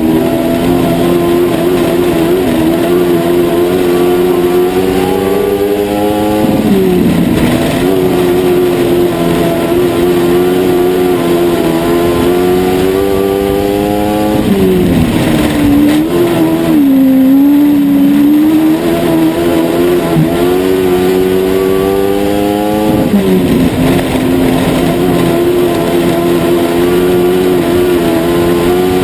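Dwarf race car's engine heard from on board at racing speed. Its pitch climbs steadily down each straight and drops sharply three times as the car lifts off for the turns, then picks up again.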